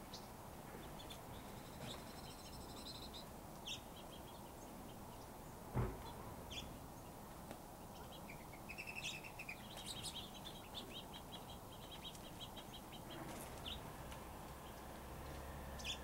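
Small finches chirping and twittering, with fast runs of high trilled notes in the middle. A single short thump about six seconds in is the loudest sound.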